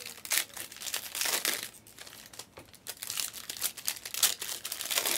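Plastic wrapping crinkling in irregular crackly bursts as it is handled.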